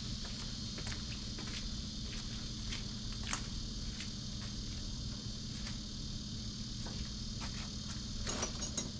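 Steady, high-pitched insect chorus over a low, steady hum, with a few faint clicks; the clearest click comes about three seconds in.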